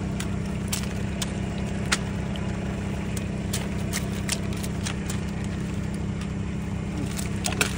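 An engine idling steadily with an even low throb, and scattered sharp clicks and rustles as live giant freshwater prawns and trap netting are handled.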